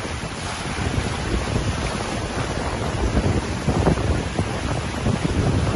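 Deep floodwater rushing and splashing around a vehicle wading through it, with wind buffeting the microphone.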